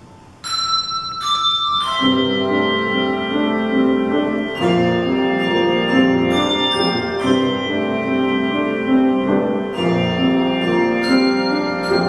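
Handbell choir ringing a hymn: two single high bell strikes, then from about two seconds in full ringing chords of many bells sounding together in a repeating pattern.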